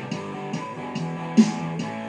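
Electric guitar played over the Digitech Trio+ pedal's generated bass and drum backing. The drum hits come at a steady beat, with a louder accent about a second and a half in.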